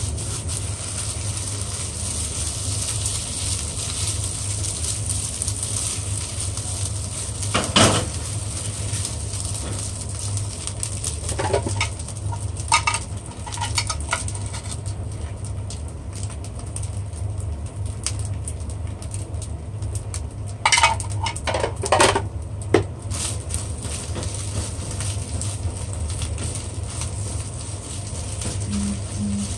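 Egg fried rice sizzling in a nonstick frying pan on a gas burner over a steady low hum. A silicone spatula scrapes and knocks against the pan several times as the rice is stir-fried.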